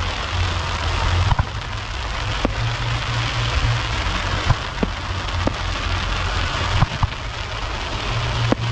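Distant fireworks: scattered sharp pops at irregular intervals over a steady hiss and low rumble.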